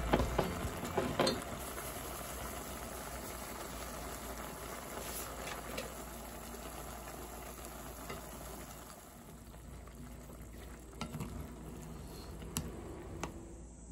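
Walnuts simmering in a soy-sauce and sugar glaze in a pan, a steady bubbling hiss. A few light knocks of a spatula against the pan come in the first second or so and again near the end.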